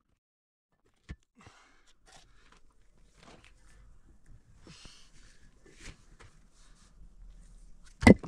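Scattered rustling and scraping, with a short click about a second in and a loud, sharp knock near the end, which is the loudest sound.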